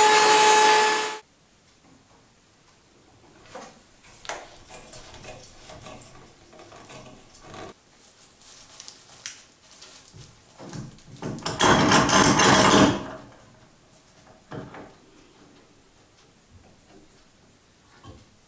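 A table-mounted router cutting a curved wooden bench part, stopping abruptly about a second in. Then wooden boards and steel clamps being handled on a workbench: scattered knocks and rubs, with a loud rushing noise lasting about a second and a half past the middle.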